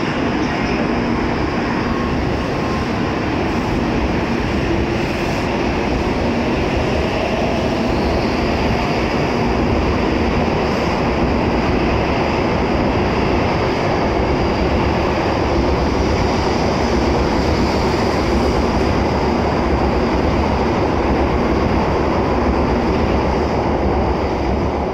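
Tokaido Shinkansen N700-series bullet train pulling out of the platform and gathering speed, the steady running noise of its cars and wheels on the rails as they pass close by.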